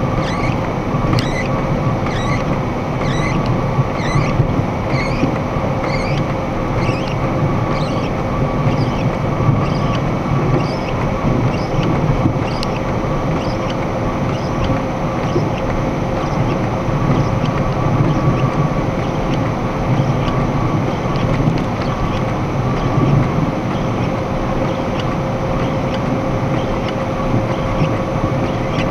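Steady engine and road noise inside a box truck's cab at highway speed, with a faint steady hum. A light regular ticking, about one and a half ticks a second, fades out about halfway through.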